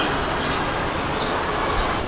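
Wind blowing in a steady, loud rush, with a few faint bird chirps above it.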